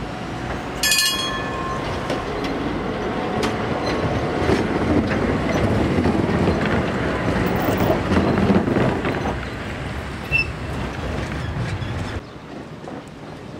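Articulated electric tram running past at close range: steel wheels rumbling on the rails with scattered knocks over the track, loudest as it goes by. A short bright ringing tone sounds about a second in, and the sound drops suddenly near the end.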